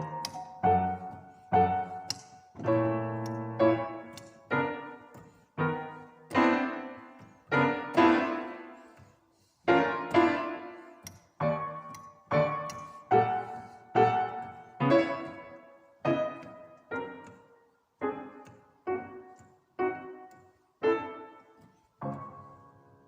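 Solo piano playing slow music: chords and notes struck about once or twice a second, each sharp at the start and left to ring and fade before the next.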